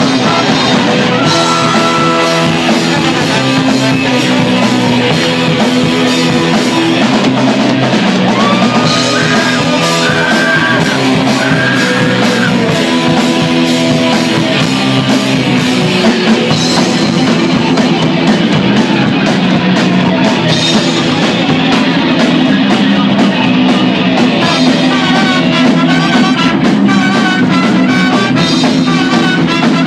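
Live rock band playing loud and fast: drum kit, electric bass and guitar, with a singer singing and shouting into a microphone.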